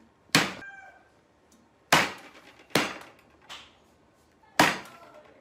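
Hand slapping a table, four sharp loud slaps about a second apart with a lighter one between the third and fourth; after the first, something on the table briefly rings.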